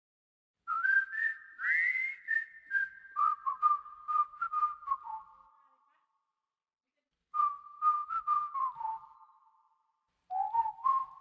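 A tune of clear, whistle-like notes in three short phrases, each note starting sharply and ringing on into the next, with silent gaps between the phrases.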